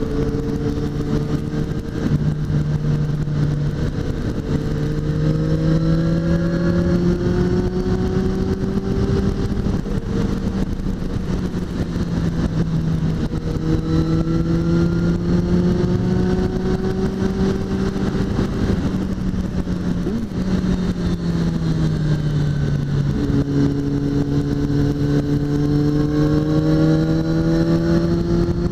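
Motorcycle engine under way at road speed, its note rising and falling slowly with the throttle, over a steady rush of wind noise. About twenty seconds in the note sags, then steps back up about three seconds later.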